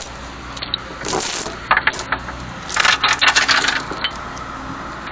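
Steel tie-down chain clinking and rattling in short bursts as it is handled and hooked on a trailer, the longest run of clinks about three seconds in.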